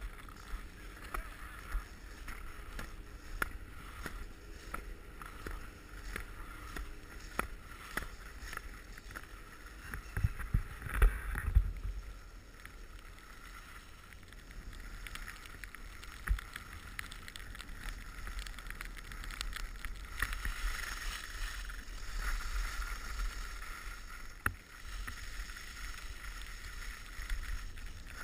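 Skis sliding over snow: a steady hiss with scattered scrapes and knocks, and a run of heavy thumps about ten seconds in.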